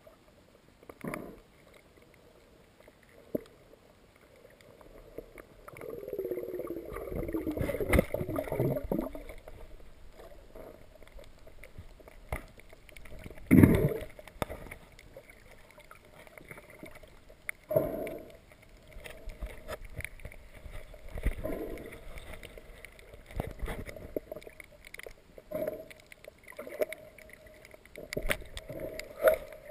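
Muffled underwater water noise picked up by a submerged camera: water gurgling and bubbling, with irregular knocks and thumps against the camera. A longer bubbling gurgle falls in pitch about six to nine seconds in, and the loudest knock comes about halfway through.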